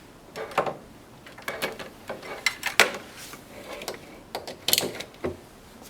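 Cable plugs and a power adapter being handled and plugged in: a string of irregular clicks and short rattles.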